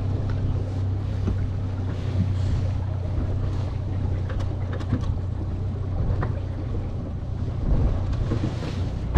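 Boat engine running steadily with a low hum, with wind noise on the microphone.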